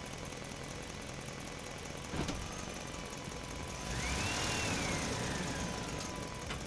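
Fiat 480 tractor's diesel engine running steadily while it drives a boom sprayer, with one sharp knock about two seconds in. Past the middle it grows louder, and a high whine rises and then slowly falls.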